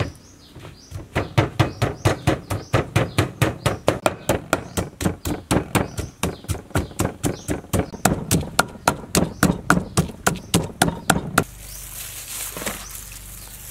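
Wooden pestle pounding turmeric in a clay mortar: steady thuds at about four a second. They stop near the end, and a steady hiss takes over.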